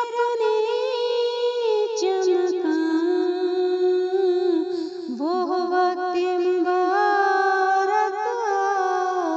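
A female voice singing an Urdu naat solo, without instruments, in long held notes with wavering melodic ornaments.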